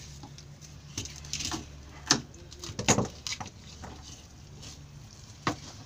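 Knives scraping scales off whole fish and knocking against a wooden cutting table: a handful of short, sharp knocks and scratches, the loudest about two and three seconds in, over a steady low hum.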